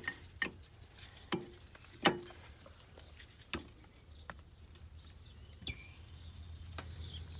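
Scattered sharp clicks and knocks from a threaded steel pier jack being tightened by hand up against a 2x4 block and crowbar under a mobile home's frame, the loudest knock about two seconds in, with a short creak near the end.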